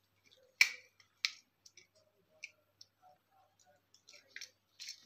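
Small clicks and scrapes of a screwdriver and wire ends at the screw terminals of a two-way light switch as the wires are fastened. Two sharp clicks come in the first second and a half, followed by scattered lighter ticks.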